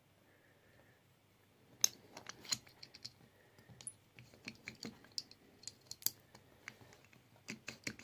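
Faint, irregular small clicks and taps as a brass EC5 connector pin is handled and seated into a metal plug-holding clamp, starting a couple of seconds in.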